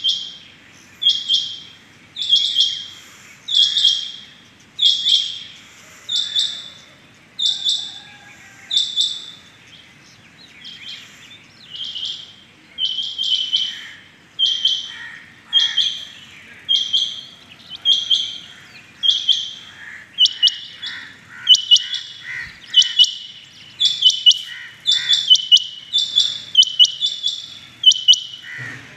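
Rain quail calling: short, high, metallic double-note calls repeated about once a second, coming faster and overlapping from about two-thirds of the way through.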